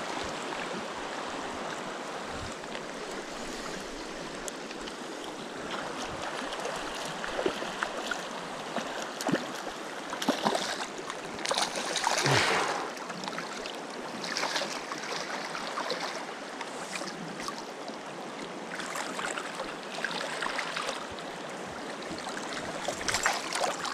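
Fast river rapids rushing steadily, with water splashing close by in bursts, loudest about halfway through.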